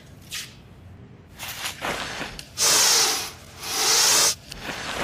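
Two loud bursts of harsh hissing noise, each about half a second long and a second apart, with fainter rustling noise before them.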